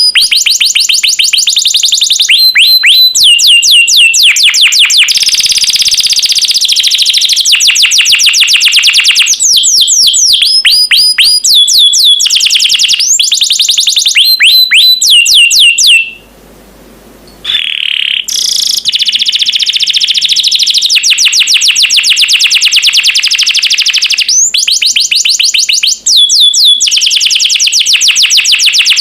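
Domestic canary singing long, fast trills of rapidly repeated high notes, phrase after phrase, with a brief pause a little past the middle.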